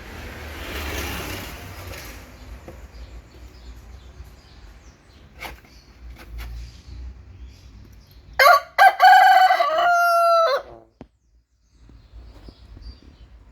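A rooster crowing once, loud, about eight seconds in: a short first note, then a long held note that falls away at the end, lasting about two seconds.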